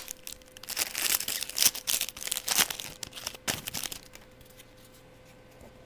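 Foil trading-card pack wrapper crinkling and tearing as a pack is opened by hand, in irregular crackly bursts for about four seconds before it stops.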